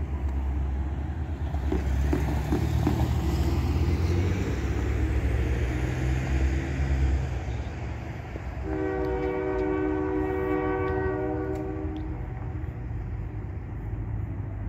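Train horn sounding one long steady blast of about three seconds, its several chimes forming a chord, from a locomotive approaching on street-running track. Before the horn there is a low rumble.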